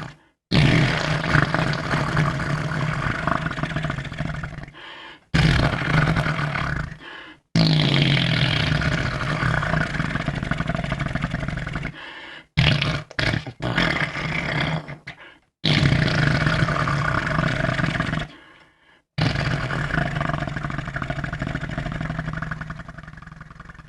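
A person making imitation fart noises: a series of loud, low, buzzing blasts. Each one lasts several seconds, starts abruptly and trails off, with a few short ones about halfway through.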